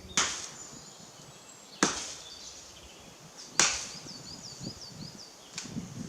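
Three axe strikes biting into a woody shrub stem, about a second and three-quarters apart. After the third, a small bird sings a short chirping phrase several times.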